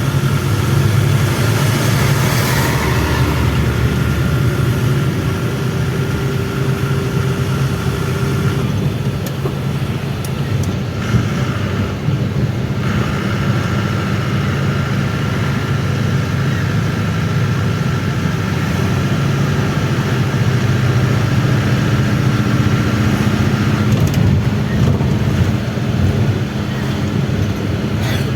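Engine and road noise inside the cabin of a moving Volare A6 micro-bus: a steady, loud low drone with a thin whine above it, picked up without noise suppression.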